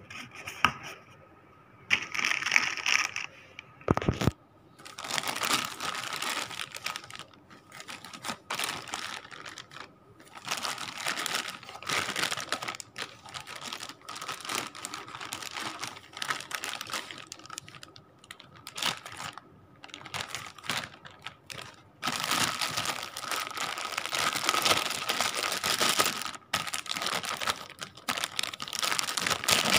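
Clear plastic packaging bag crinkling and rustling in irregular bursts as a tool is handled and unwrapped from it, heaviest near the end.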